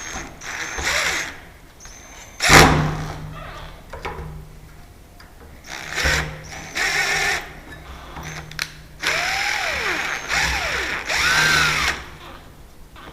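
Power drill running in several short bursts of about a second each, its pitch bending as it speeds up and slows down, with one sharp knock about two and a half seconds in.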